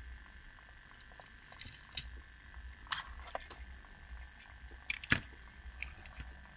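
A few sharp clicks and taps of a small die-cast toy car being handled and lifted off a display turntable, the loudest about five seconds in, over a faint steady hum.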